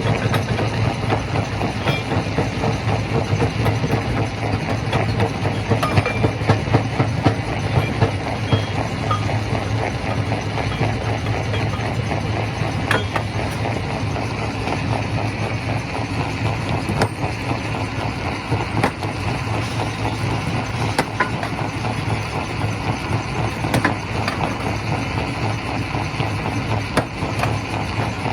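Primary rock crusher at a quarry running: a steady low machine drone under constant rattling and knocking of stone, with a few sharper knocks scattered through.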